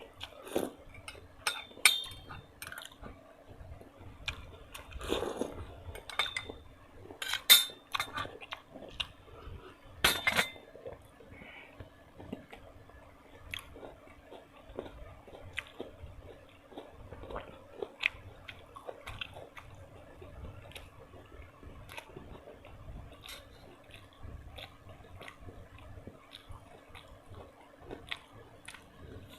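Close-miked eating: a person chewing and biting food, with many short sharp clicks, the loudest few in the first ten seconds. A faint steady hum runs underneath.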